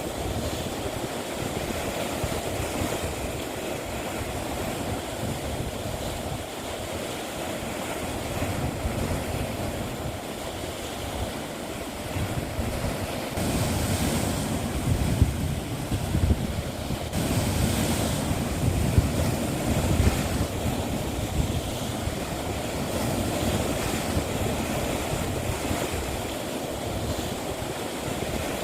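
Sea waves washing against the shore in a continuous rushing wash, with a couple of louder surges breaking in about halfway through.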